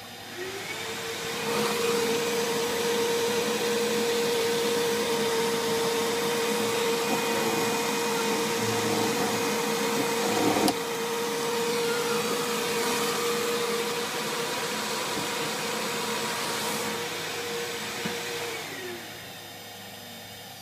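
Vacuum running with its nozzle held at the cutter of a benchtop CNC mill as it machines, spinning up about a second in and winding down near the end. About halfway through there is one sharp crack, after which the sound drops a little: the end mill snapping off, which the owner puts down to feed speeds that were a little too aggressive.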